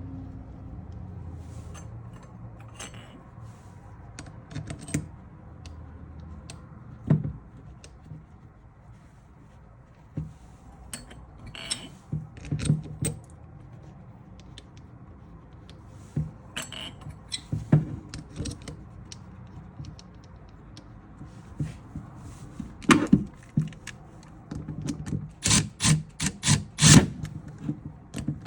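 Scattered metal clicks and taps of bolts and hand tools being handled while a power steering pump's housing covers are bolted back together. A quick run of louder clicks comes near the end.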